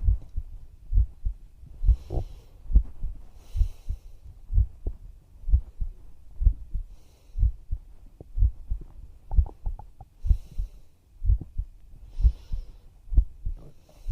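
A woman's own heartbeat picked up close to the chest, slow and steady low thumps about once a second.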